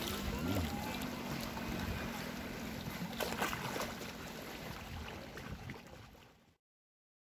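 Wind noise and sea water sloshing in the shallows, with faint voices and a few splashes. It fades out and stops about six and a half seconds in.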